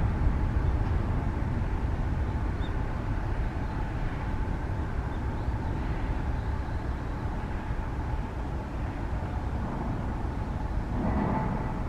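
Jet airliner engines rumbling at a distance with a faint steady whine, slowly fading.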